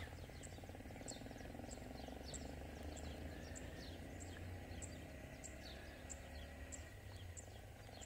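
Faint open-field ambience: short, high chirps repeat about every 0.6 s over a low steady hum.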